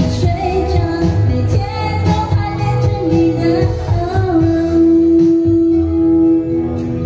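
Live pop song with a female vocal, violin and saxophone over a steady beat, with one long note held near the middle.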